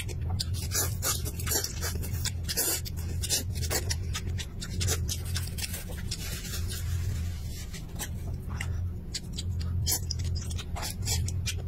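Close-miked chewing and lip-smacking of a person eating chicken and rice: a steady run of short wet mouth clicks over a continuous low hum.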